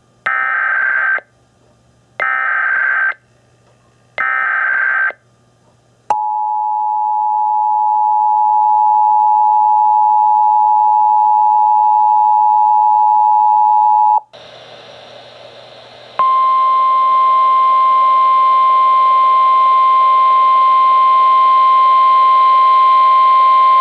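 Emergency alert broadcast of a tornado warning. Three short screeching bursts of digital SAME header data about a second apart come first, then the steady two-tone EAS attention signal for about eight seconds. After a moment of static hiss, the single-pitch NOAA Weather Radio warning alarm tone plays over static.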